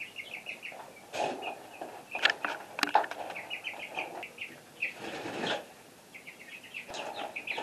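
Young chickens peeping in quick runs of short high chirps, with some rustling and a few sharp knocks in between.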